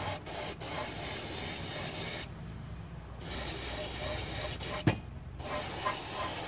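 Airbrush spraying paint: a steady hiss of air and paint that cuts off briefly twice as the trigger is let go. A single click comes just before the second pause.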